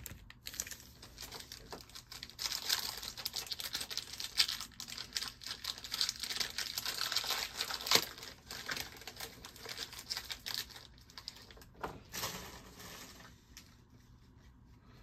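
The wrapper of a Panini Chronicles Racing trading card pack crinkling and tearing as it is ripped open, with the cards inside being handled. It is a dense crackle of small clicks that eases off near the end.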